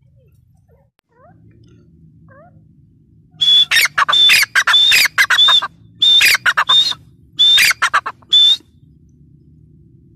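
Grey francolin calling: about three and a half seconds in, three bursts of loud, high-pitched, rapidly repeated harsh notes with short gaps between them, over a faint low hum.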